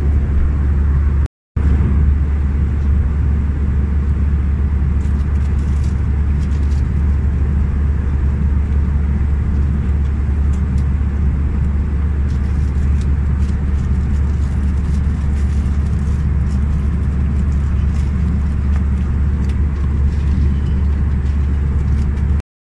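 Steady cabin noise of an Airbus A319 airliner in flight: a constant loud low rumble with an even hiss above it. It cuts out briefly once, about a second and a half in.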